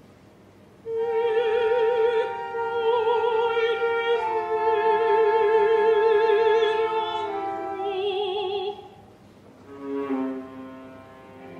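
Operatic soprano singing a slow line of long held notes with wide vibrato. The voice enters about a second in and stops about nine seconds in, with quiet orchestral strings before and after it.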